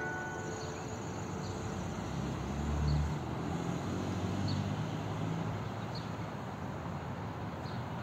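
A vehicle passing on the road with a low engine rumble that is loudest about three seconds in, while the last church bell tones die away in the first second. Faint short high chirps repeat every second or so over outdoor background noise.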